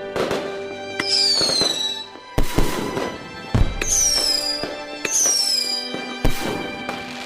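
Fireworks going off: a series of sharp bangs, several of them followed by a whistle that falls in pitch.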